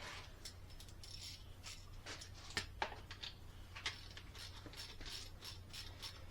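Faint, irregular light clicks and taps of a hand wrench and small metal parts being handled while a bolt is started, over a low steady hum.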